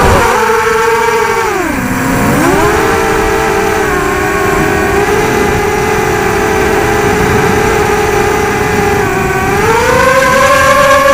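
Brushless motors of a 250-size racing quadcopter on a 4S battery whining in a stack of pitches that follow the throttle. The pitch dips sharply about two seconds in, climbs back and holds steady, then rises again near the end. A short knock comes right at the start.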